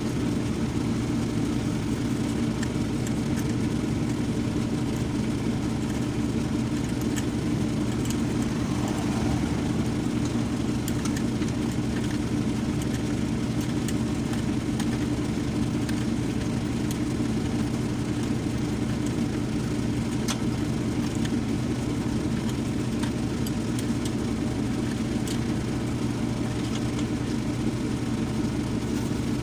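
Isuzu 4HK1 four-cylinder diesel engine idling steadily, running again after a loose battery-terminal connection that had stopped it starting was fixed.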